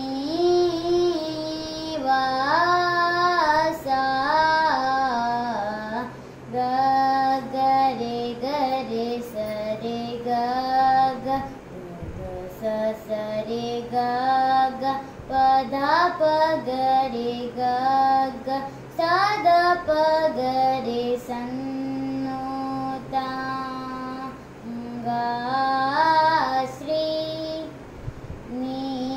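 A boy singing a Carnatic thana varnam solo in phrases, his voice sliding and oscillating between notes in gamaka ornaments, with short breaths between phrases. A steady low drone holds underneath.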